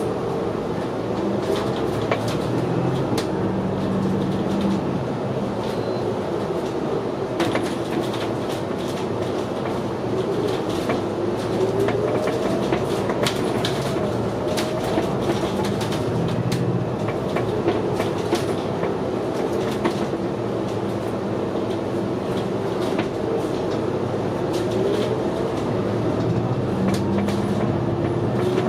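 City bus running, heard from inside: a steady engine and drivetrain drone with a whine that rises and falls in pitch as it speeds up and slows, and frequent clicks and rattles from the body.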